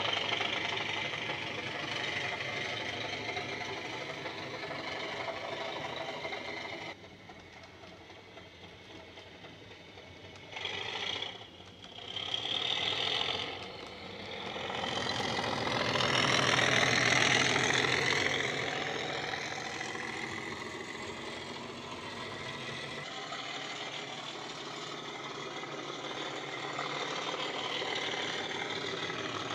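Recorded British Rail Class 37 diesel engine sound (English Electric 12CSVT V12) from a Loksound 5 decoder, played through a small EM1 speaker in a Bachmann OO-gauge model as it runs. It drops away about a quarter of the way in, comes back in two short louder bursts, swells to its loudest near the middle, then settles to a steady run.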